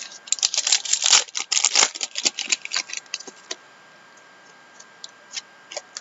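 Hockey trading cards and their packaging being handled: a dense flurry of crisp clicks and crinkles for the first three and a half seconds, then a few scattered clicks.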